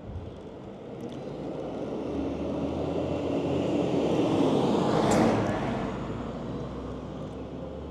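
Road traffic: a vehicle passing close by, its engine and tyre noise swelling to a peak about five seconds in and then fading, over the steady low hum of the filmer's own vehicle on the move.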